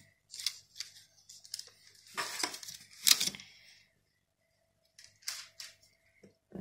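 Scattered rustling and light clatter of cookie dough and baking parchment being handled on a metal baking tray, with short quiet gaps; the loudest rustle comes about three seconds in.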